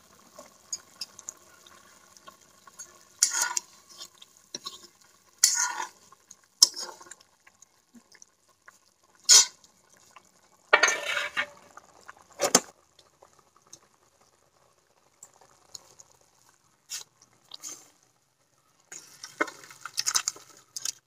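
A spoon stirring and scraping in a metal kadai of simmering fish curry, heard as separate clinks and scrapes with quiet gaps between. Near the end the curry is poured out of the kadai into a steel bowl.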